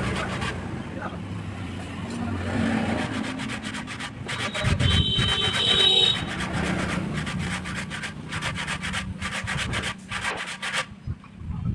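Hand rubbing or sanding strokes on wood, a rapid, uneven scraping. A brief high tone sounds about five seconds in.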